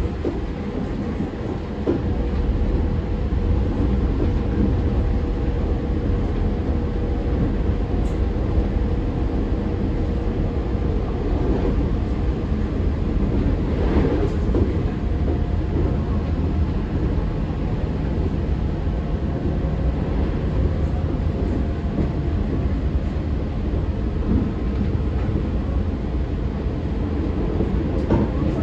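Inside a JR West 113 series electric train car running at speed: a steady rumble of wheels on the rails with a humming tone from the running gear that fades away about halfway through. A brief louder clatter comes about fourteen seconds in.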